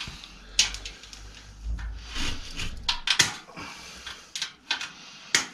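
Irregular metal clicks, scrapes and short rattles as a rusty spoked bicycle wheel is handled and turned, with a sharp knock near the end as the loudest sound.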